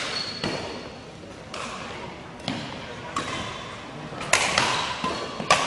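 Badminton rally: about seven sharp racket-on-shuttlecock hits, roughly a second apart and coming faster near the end, each echoing in a large gym hall.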